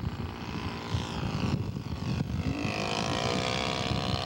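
Engine of a radio-controlled scale Stuka model on a low pass. A rough, noisy start gives way about halfway in to a clear engine note that rises slightly in pitch.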